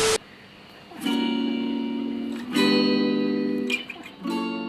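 Three strummed guitar chords, each left to ring for a second or more before the next. Just as it begins, a burst of static hiss with a steady beep cuts off abruptly.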